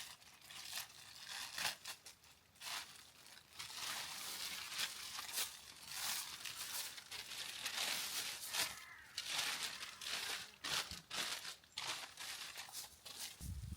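Irregular crinkling and rustling with many short crackles, something being crumpled or handled close by.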